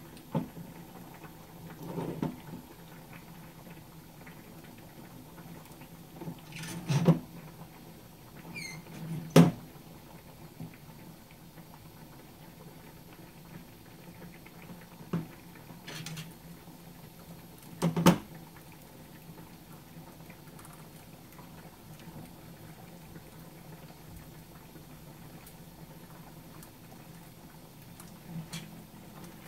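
A frying pan handled on a gas stove grate: scattered light knocks and clicks, the loudest about seven, nine and eighteen seconds in, over a faint steady low hum.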